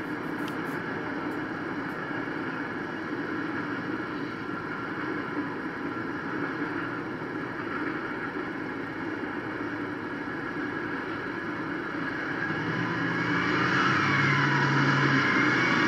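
Freight train rolling past with a steady rumble, mixed with street traffic, heard through the speaker of a screen playing a webcam feed. Near the end it grows louder, with a low steady tone and a wavering higher whine on top.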